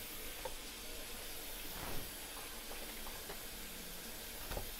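Coffee maker brewing: a steady hiss of steam, with a light knock about two seconds in.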